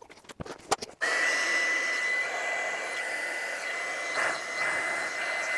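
A few handling clicks, then an electric heat gun switches on about a second in and runs steadily, its fan blowing with a constant high whine while it shrinks heat-shrink tubing onto a battery cable terminal.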